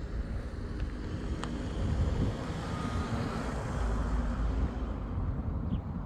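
A road vehicle passing, its noise swelling toward the middle and fading near the end, over a low rumble of wind on the microphone.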